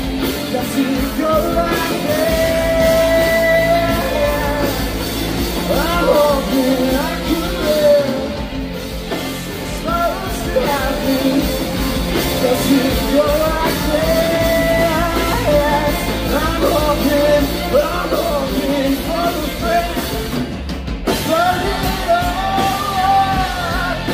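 Live rock band playing, heard from the crowd: two electric guitars, bass guitar and drums, with a lead vocal singing over them.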